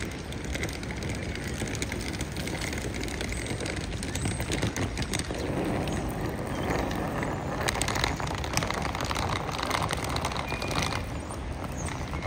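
City street ambience with traffic noise. A vehicle passes, louder through the middle of the stretch.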